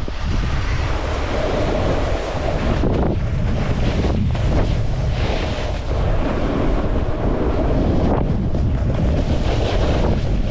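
Wind buffeting an action camera's microphone in a low rumble, over a rushing hiss that swells and fades every second or two.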